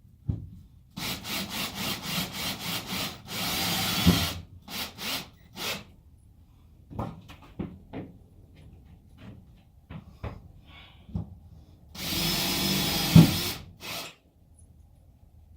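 Cordless drill driving self-drilling Tek screws into wood. Short trigger pulses give way to a steady run that ends in a knock. About twelve seconds in, a second screw is driven in one steady run and seats with a loud knock.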